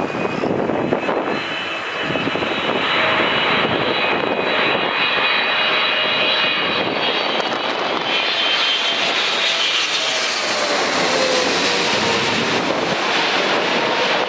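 Boeing 777F cargo jet's twin GE90 turbofans on landing approach, passing low directly overhead: steady loud jet noise with high whining fan tones. The sound grows brighter and harsher as the aircraft goes right over, about two-thirds of the way through, and a lower tone falls in pitch near the end.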